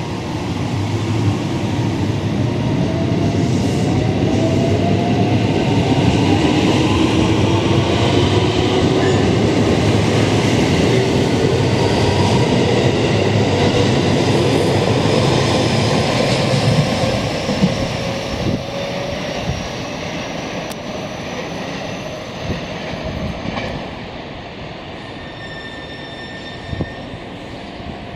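JR West 207 series electric train pulling away, its motors whining in several tones that rise steadily in pitch as it gathers speed over a heavy rumble of wheels on rail. The sound grows loudest in the middle and fades after about seventeen seconds as the train leaves, with a few rail knocks after that.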